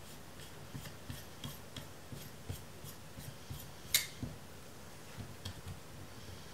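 Lens retaining ring being threaded by hand onto the shutter barrel of a large-format lens: faint, irregular metallic ticks and scrapes from the threads, with one sharper click about four seconds in.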